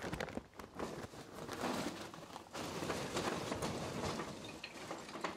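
Hardwood lump charcoal poured from a paper bag onto the fire-brick floor of a grill's firebox: big chunks clattering and knocking down against brick and each other, with the paper bag rustling.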